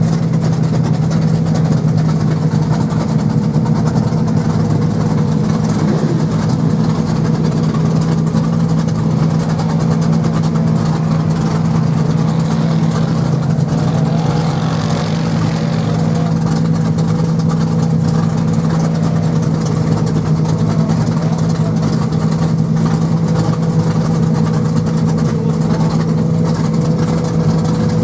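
Rock bouncer's engine idling steadily with an unbroken low drone.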